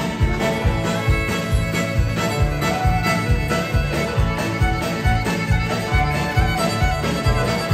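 Live country band playing, with fiddle over electric and acoustic guitars and a drum kit keeping a steady beat of about two strokes a second.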